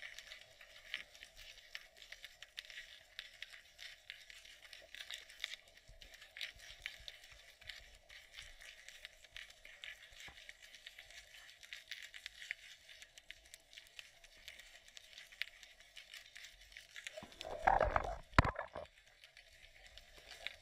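Underwater sound picked up through a GoPro's waterproof housing: a dense, faint crackle of small clicks over a steady hum. A louder rumbling knock comes near the end.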